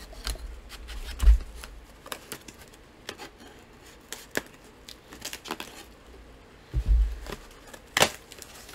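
A cardboard book mailer being opened by hand: scattered crackles and tearing of packing tape and cardboard, with dull knocks about a second in and again near seven seconds, and a sharp crack at about eight seconds.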